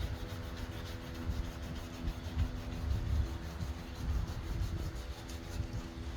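Power tool spinning a 500-grit sanding pad, wet-sanding a plastic headlight lens: a steady motor hum with the rubbing of the pad on the lens.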